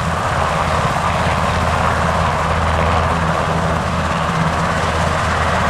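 Sikorsky CH-148 Cyclone helicopter taxiing on the ground, its main and tail rotors turning and its twin turboshaft engines running steadily with a low drone.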